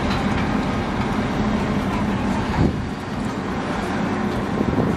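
Heavy machinery engine running steadily, with a short louder knock a little past halfway.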